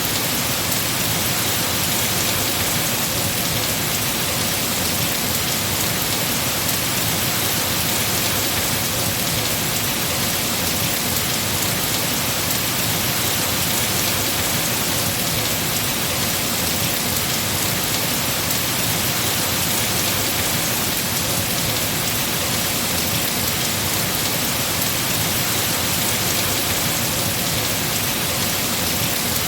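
Heavy rain falling steadily on trees and foliage, a constant even hiss with no breaks.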